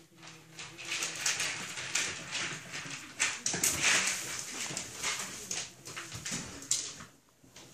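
Puppies scrambling and playing in a wire pen: an uneven, busy run of short scratching and tapping sounds, with a lull near the end.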